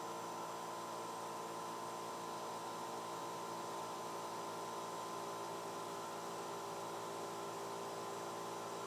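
Slimline ductless heat pump condenser unit running steadily at full capacity on its own, with the gas furnace shut off: an even, low-level hum holding a steady tone throughout.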